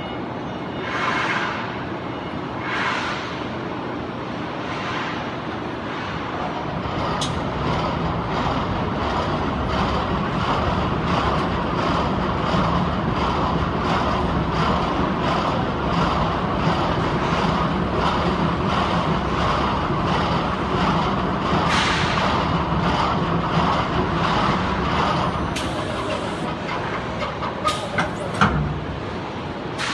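Automatic stretch-film packing machine for metal profiles and bars running, a steady machine noise with a regular beat of about two strokes a second. Three short hissing bursts come in the first few seconds, and a few sharp clicks near the end.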